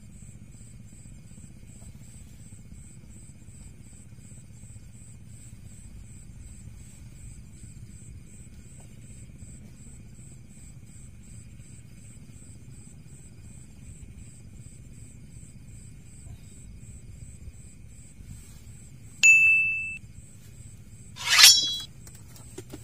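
Night insects chirp steadily over a low background rumble. About 19 s in a rod's bite alarm rings once, a short ding; two seconds later a louder, harsher burst comes as the angler snatches up the rod to strike.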